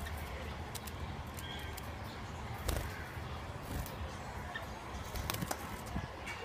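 Gouldian finches in an aviary: a few faint, short chirps and scattered light clicks over steady low background noise.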